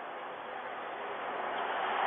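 Steady hiss of background noise through a doorbell camera's microphone, slowly growing louder.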